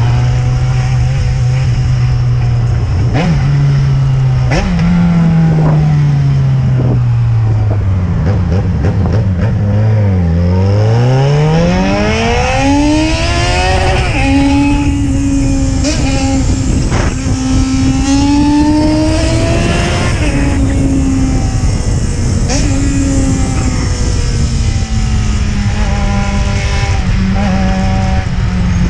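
Yamaha XJ6N's 600 cc inline-four engine running under way, with wind rushing over the microphone. Its note sinks slowly for the first ten seconds, then climbs steeply as it accelerates for about four seconds, holds a steady higher pitch, and eases off gradually near the end.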